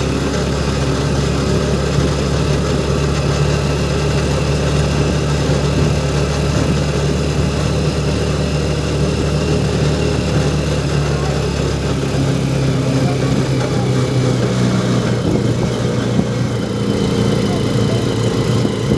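An engine running steadily, its low hum shifting about twelve seconds in.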